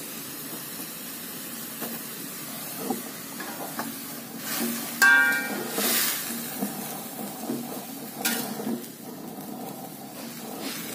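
Water spinach sizzling as it is stir-fried in an aluminium wok, a metal spatula scraping and knocking against the pan as it turns the greens. A brief metallic ring about five seconds in, and another sharp knock just after eight seconds.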